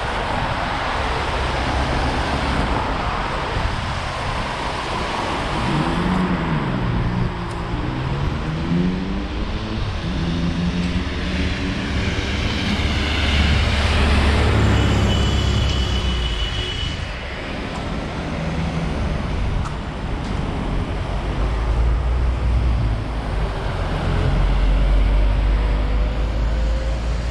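City street traffic: motor vehicles passing with a continuous low rumble. Engine pitch rises and falls as they accelerate and slow, most clearly a few seconds in.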